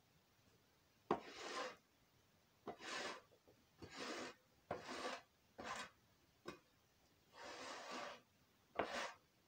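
Long-handled scraper blade scraping donkey manure across a concrete stall floor. It makes about eight short, rasping strokes at an uneven pace, most of them opening with a sharp knock.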